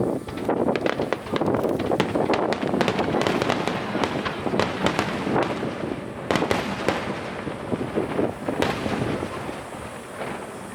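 Star mine barrage of aerial fireworks: shells bursting in rapid succession with dense crackling, easing off a little near the end.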